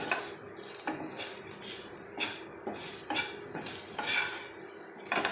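A utensil scraping and tapping against a shallow frying pan at an irregular pace, about once or twice a second, as small colocasia (taro) roots coated in spice powder and salt are stirred. Under the strokes, the oil sizzles lightly as the roots fry.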